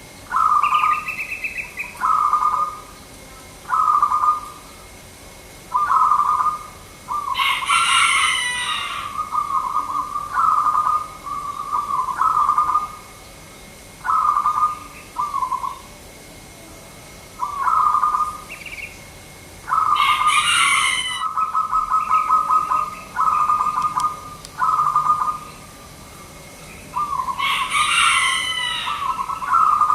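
Zebra dove (perkutut) cooing: short rolling, trilled coos repeated about every two seconds, some drawn out into longer trills. Three times a brief, sharp, high-pitched bird call cuts across the cooing.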